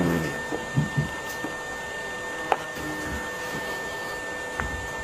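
A steady mechanical hum with a faint high whine running through it, and a few faint short sounds: a couple about a second in, one halfway through, and one near the end.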